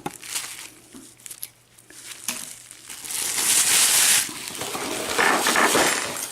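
Packaging crinkling and rustling as it is handled, with a few small clicks, then two loud spells of crinkling about three seconds in and again about five seconds in.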